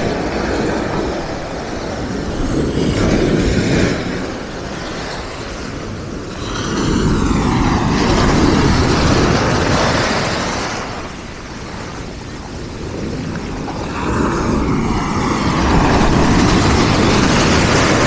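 Sea waves breaking and washing up over a pebble beach, the surf swelling and falling in several long surges, with the fullest rush about eight to ten seconds in and again near the end.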